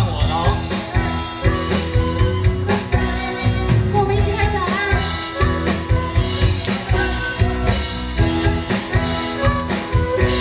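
Live band music with a drum kit keeping a steady beat under sustained pitched instruments.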